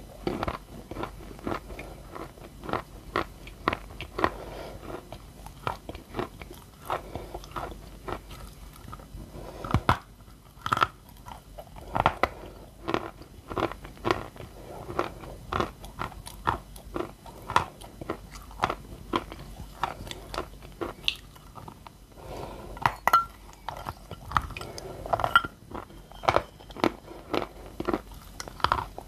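Close-up biting and chewing of a moistened block of white edible clay: crisp crunches every second or so, with soft wet chewing in between.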